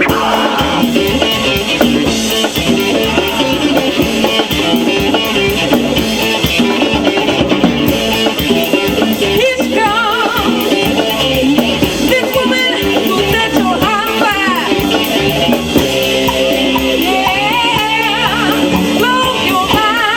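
Band music with a drum kit and guitar playing steadily, and a singing voice coming in about halfway through.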